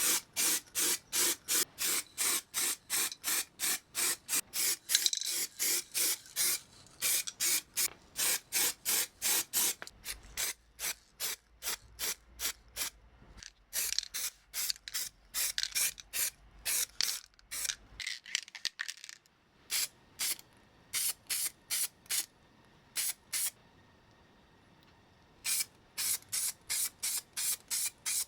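Quick back-and-forth scraping or rubbing strokes by hand, about three a second, in runs broken by two short pauses in the second half.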